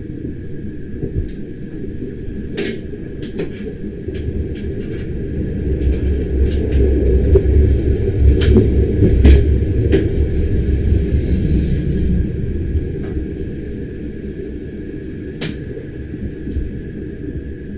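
Bernina Express train running, heard from inside a passenger carriage: a steady low rumble of wheels on rail that grows louder for a few seconds midway, with scattered clicks and knocks.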